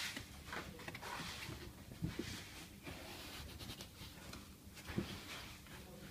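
Hands pressing and rubbing a sheet of sound-deadening material against a car door's inner metal panel: faint scraping and rustling with a few soft knocks, the clearest about two seconds and five seconds in.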